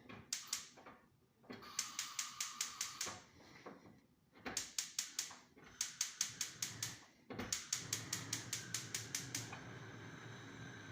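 Rapid runs of sharp mechanical clicks, about seven a second, in four bursts with short gaps between them.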